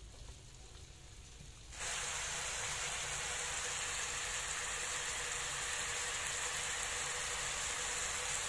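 Thickened fish-sauce glaze sizzling steadily in a frying pan around pieces of fried tuna. It starts abruptly about two seconds in, after a quieter stretch.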